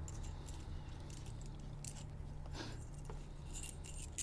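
Faint clinks and rattles of metal bolts and washers being handled, a few small clicks in the second half, over a steady low hum.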